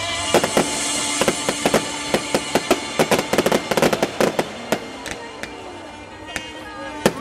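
Aerial fireworks going off: a rapid run of sharp pops and bangs from bursting shells, thinning out about halfway through, then a few louder bangs near the end.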